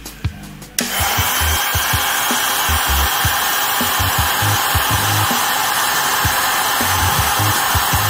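Heat gun switched on about a second in, then blowing with a steady rushing hiss.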